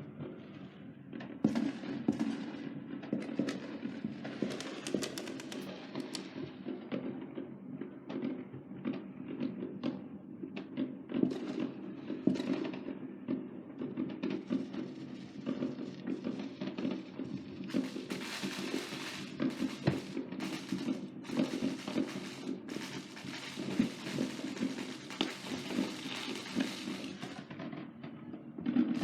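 Fourth of July fireworks going off: many bangs and pops in quick, irregular succession. From a little past halfway, dense crackling joins the bangs.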